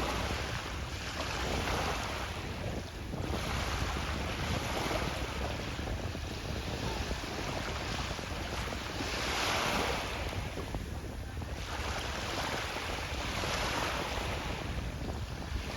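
Wind buffeting the microphone over water rushing and slapping against an Exocet windsurf board, rising and falling in irregular surges.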